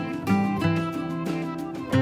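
Calm instrumental background music, a steady run of plucked notes.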